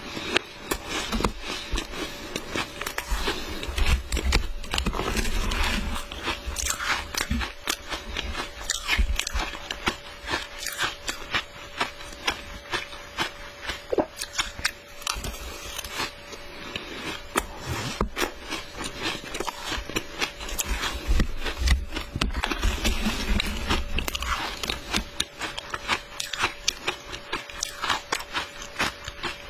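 A person chewing mouthfuls of matcha-dusted shaved ice: a dense, steady run of crisp crunches and cracks as the ice breaks between the teeth.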